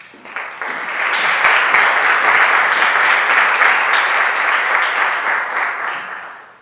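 Audience applauding, swelling up within the first second, holding steady, then dying away near the end.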